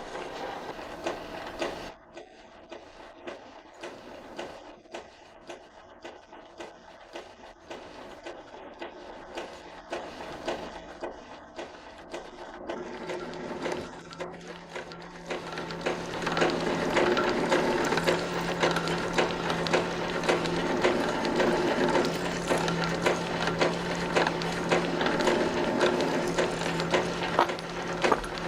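Metalworking machinery in a scissor workshop: light mechanical clicking and clatter at first, then about halfway through a machine runs louder with a steady hum and rapid ticking.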